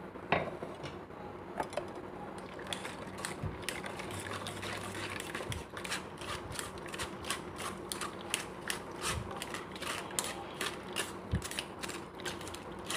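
Steel spoon scraping and pressing watermelon pulp against a stainless-steel mesh strainer, a fast run of short scratchy strokes, several a second. There is a sharp metal knock just after the start.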